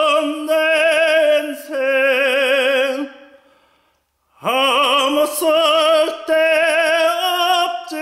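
Operatic solo singing, held notes with a wide vibrato. The voice trails off about three seconds in, stops for about a second, then swoops up into the next note and carries on.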